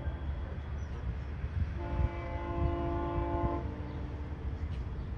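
Distant GO Transit commuter train sounding its multi-note horn as it approaches the station: the tail of a short blast right at the start, then one longer blast of about two seconds that fades out, over a steady low rumble.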